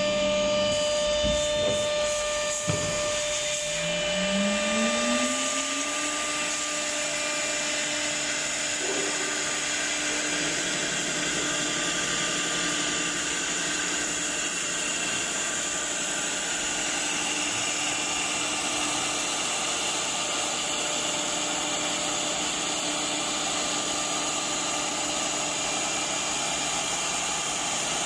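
CNC router spindle spinning up, a whine rising for about two seconds after a few knocks near the start, then running steadily at 18,000 rpm over a constant rushing noise from the machine.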